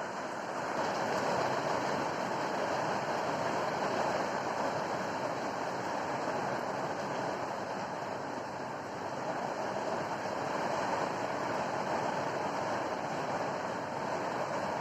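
Heavy rain with strong wind: a steady rushing noise that swells slightly about a second in.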